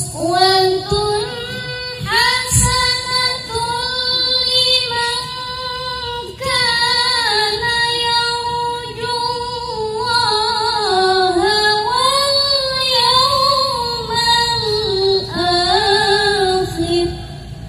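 A high female voice singing an unaccompanied Arabic devotional praise song (sholawat) solo, in a slow, ornamented melody of long held notes that bend and waver. The singing stops shortly before the end.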